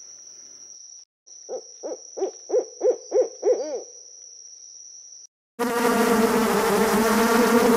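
A quick series of about eight short hooting calls, each rising and falling in pitch, over a steady high whine. After a brief silence, a loud steady droning noise with a low hum starts near the end and is the loudest sound.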